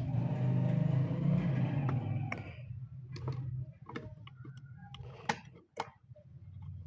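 Light switches clicking as the three-way circuit is tested: a string of sharp clicks, the two loudest a little past five seconds and just before six, over a low steady hum that drops away about three and a half seconds in.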